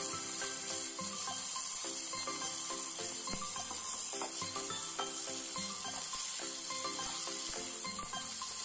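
Rice and vegetables sizzling in hot oil in a nonstick pan while a steel spatula stirs them, with scattered light scraping clicks of the spatula against the pan. Background music with sustained notes plays throughout.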